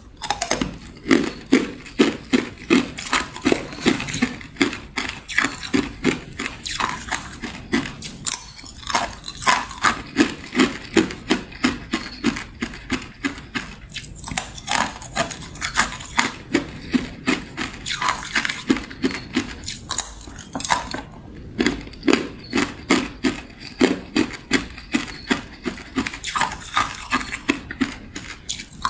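Thin sheet of ice being bitten and chewed, a rapid run of crisp crunches about three a second with a few short pauses.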